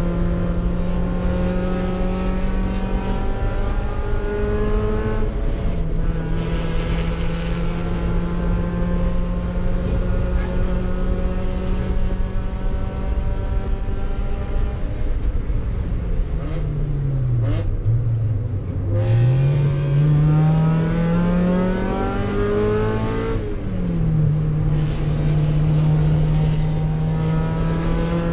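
Mazda Miata race car's four-cylinder engine heard from inside the cockpit, running hard at steady high revs. About two-thirds through the revs fall away smoothly, then climb back under acceleration, and a few seconds later the pitch drops sharply at an upshift.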